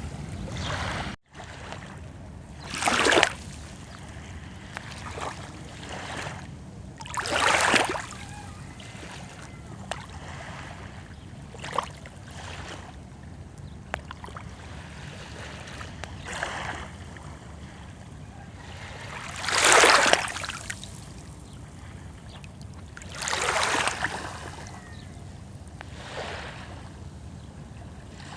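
Small sea waves lapping and splashing at the shore, a few seconds apart, each splash lasting under a second over a steady low wash of water. The loudest splash comes about two thirds of the way through. There is a brief dropout about a second in.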